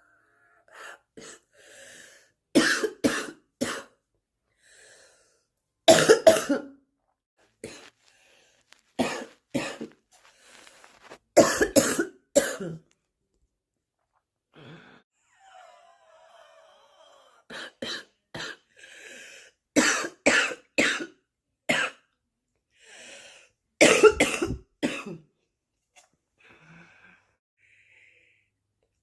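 A person's smoker's cough: about seven harsh coughing fits of several coughs each, a few seconds apart.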